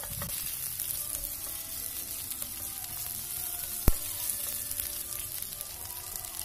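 Chilies, bell peppers, shallots and garlic sizzling in oil in a nonstick wok as they are stir-fried with a silicone spatula, a steady frying hiss. One sharp click about four seconds in.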